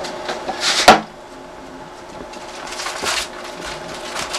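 A single sharp knock about a second in, then a short rustle about three seconds in: handling at the snake's enclosure as feeder mice are put in.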